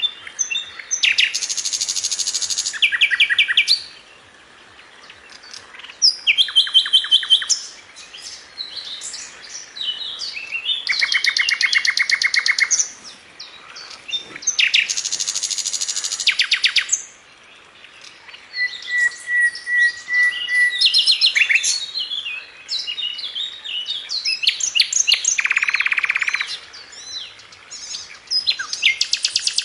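Birds singing: repeated bursts of fast, high trills a second or two long, with scattered chirps in the gaps between them and one short, steady whistled note about two-thirds of the way through.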